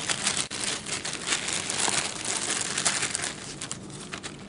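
Plastic packaging being handled, crinkling and rustling with many small crackles, which thins out near the end.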